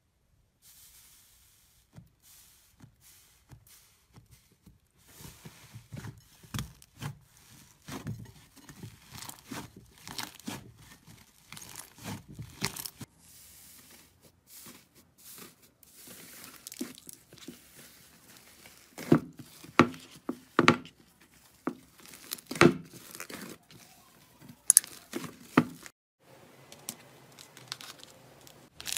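Slime being pressed, stretched and poked by hand, making irregular sticky clicks, crackles and pops as air pockets burst. It starts faint and sparse and grows denser, with the sharpest pops about two-thirds of the way through.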